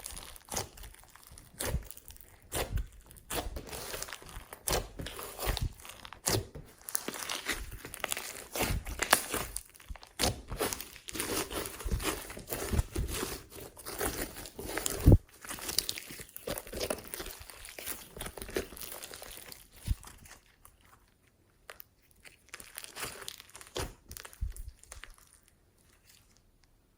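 Glossy slime being squished and stretched by hand, with dense sticky clicks, crackles and pops and one sharp pop about fifteen seconds in; the sounds thin out over the last several seconds.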